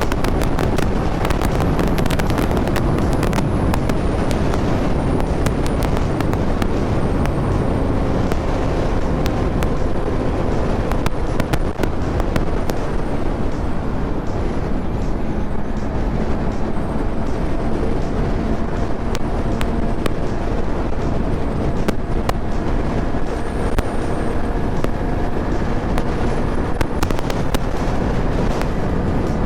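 Honda CB650R inline-four motorcycle engine running at highway speed, its pitch settling steady about halfway through, over a heavy wind rumble on the microphone and many sharp crackles.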